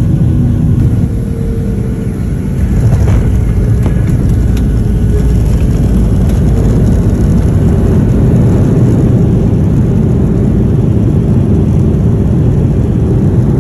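Jet airliner cabin noise by a window seat over the wing: a loud, steady engine and airflow rumble. It eases for a moment, then rises again about three seconds in, with a few brief rattles.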